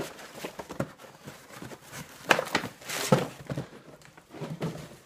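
Rustling and crinkling of packaging as things are rummaged out of a cardboard box, irregular handling noises with two louder crackles a little over two and three seconds in.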